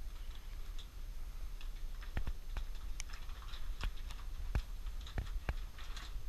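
Footsteps on stone steps and paving: irregular sharp clicks, roughly one or two a second, over a low steady rumble.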